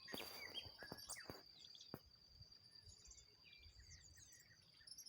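Faint birds chirping in short rising and falling calls over a steady high-pitched insect drone, with a few sharp clicks in the first second or so.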